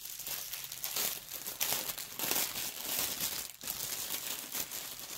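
Plastic packaging crinkling and rustling as it is handled and opened, with a brief pause about three and a half seconds in.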